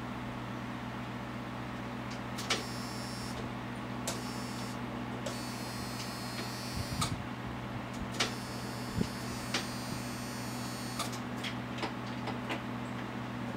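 A 1995 Jeep failing to start as the key is turned: a series of sharp clicks and several short electrical buzzes, with the starter not turning the engine over. This is typical of a weak battery.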